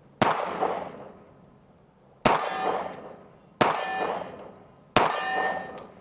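Four 9mm pistol shots at an unhurried pace, each followed by the clang and ringing of a hit on a steel target, the ring dying away over about a second.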